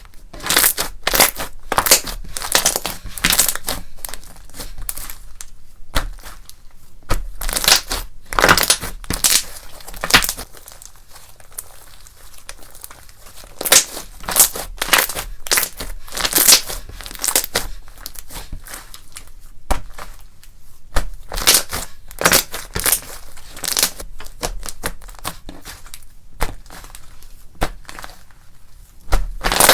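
Slime with candy mixed in being squeezed and worked by hand, giving a crunchy crackling that comes in waves with short lulls between them.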